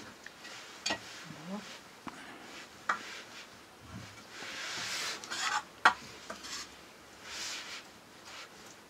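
Metal ladle stirring and scraping in a cooking pan, with a few sharp clinks of metal utensils against pots, the loudest about six seconds in, and short stretches of food sizzling as it is stirred.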